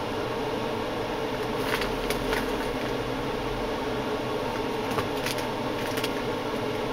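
Steady background hum, like a fan, with a few soft clicks and rustles of things being handled during unboxing.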